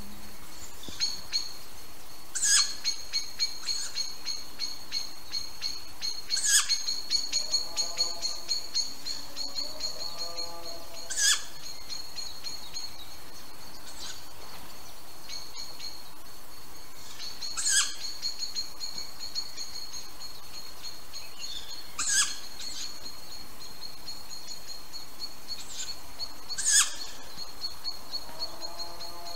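Tawny owl chick giving short, sharp, high begging calls, six loud ones a few seconds apart, over a steady high-pitched trill, with some lower bird calls a quarter of the way in.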